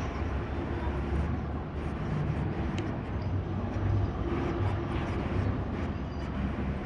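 Helicopter running steadily, heard from a distance as a continuous low rumble.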